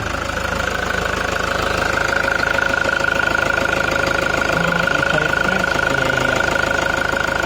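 Toyota 1KD-FTV four-cylinder turbodiesel idling steadily with its diesel clatter, a constant high-pitched whine over it, after a new turbo driver has been fitted.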